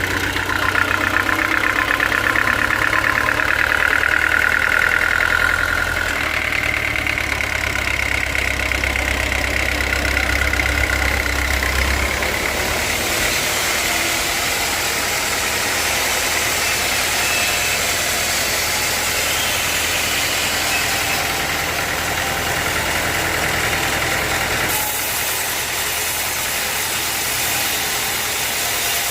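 Sawmill machinery running steadily with an engine-like drone. A high whine sits over it for roughly the first twelve seconds, and the sound shifts abruptly a few times.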